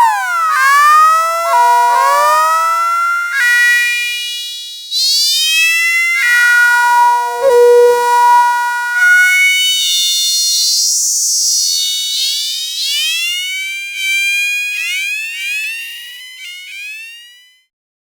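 Nord Rack 2 virtual-analog synthesizer playing a string of imitation cat meows: pitched calls that slide up and down, several overlapping, fading out near the end.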